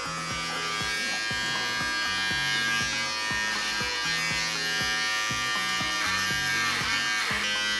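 Corded electric dog clipper with a comb guide buzzing steadily as it is run through a West Highland white terrier's thick coat; the owner finds the clipper short of power for such dense hair.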